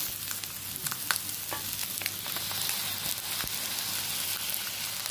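Vegetables and scrambled egg sizzling steadily in hot oil in a wide black wok, with a few light clicks.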